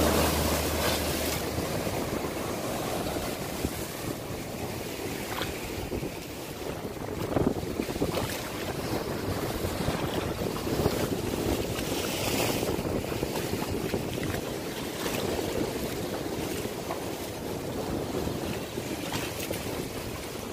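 Sea surf washing over a rocky shore shelf, with a wave crashing and splashing at the start, under steady wind noise on the microphone. Low notes of background music fade out in the first second or two.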